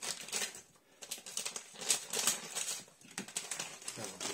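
Plastic packet crinkling as frozen chicken strips are shaken out of it into a plastic bowl, with irregular light clicks and rustles as the pieces drop in.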